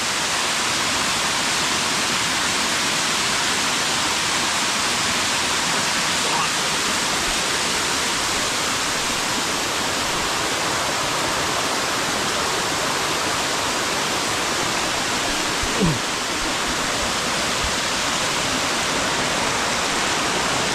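Steady rush of a waterfall: water pouring over rock in an even, unbroken roar of noise.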